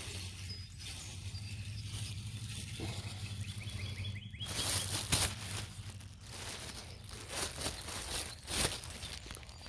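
Rustling, crinkling handling noises with a few sharp clicks, from picking up dog waste with a plastic poop bag.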